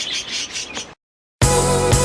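Budgerigars chirping rapidly, cut off about a second in. After a short silent gap, music with a steady drum beat starts.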